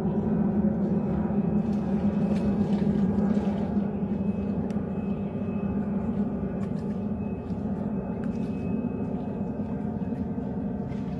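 Steady dense din of a large greater flamingo breeding colony, many birds calling at once with no break, a little louder in the first few seconds.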